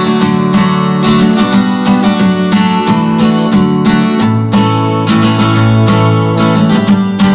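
Background music of a strummed acoustic guitar, with sharp strums about twice a second over sustained chords.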